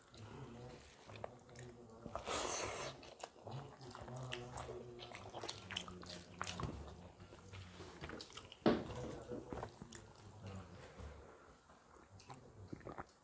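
Close-up eating sounds: wet chewing and fingers mixing rice and fish curry on steel plates, with many small clicks and smacks and one sharp click about nine seconds in.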